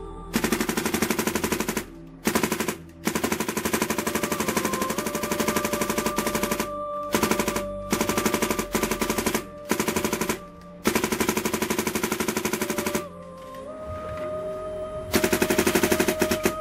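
Dye Luxe 1.5 electronic paintball marker with a Pooty flat-face bolt firing a full hopper in rapid strings, at about twelve and a half shots a second. The strings run from under a second to several seconds, with short pauses between them.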